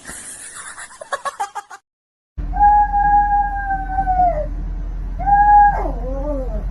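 A series of rapid clicks, then, after a break, a long drawn-out animal call held on one pitch and dropping at its end, a shorter call, and a wavering call that slides downward, all over a steady low hum.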